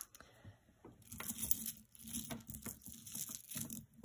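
Jewelry being handled on a cloth-covered table: beaded necklaces and metal chains rustling against the cloth with scattered light clicks, starting about a second in, with one sharper click shortly after.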